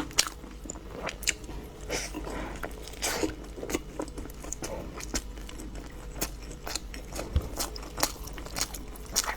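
A person biting and chewing food, with many irregular sharp crunching clicks.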